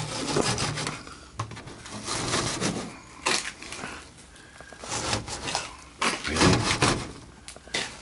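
Air filter with fibrous media being dragged and worked out of its slot in an air handler's sheet-metal cabinet: a run of rough rubbing scrapes, loudest near the end, with a few sharp clicks between them.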